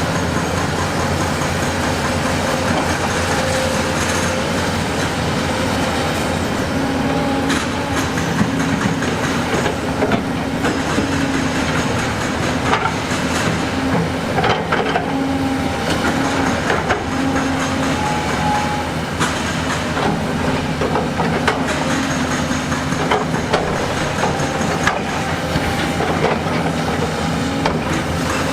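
Heavy earthmoving machine's diesel engine running, its pitch stepping up and down as it works, with scattered sharp knocks and clanks of metal and rock.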